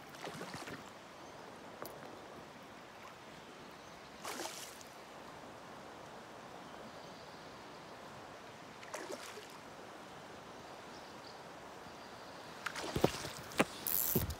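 River water flowing steadily over a riffle, with a few brief rushes of noise. From about thirteen seconds in, loud knocks and rustling as the phone is handled and swung.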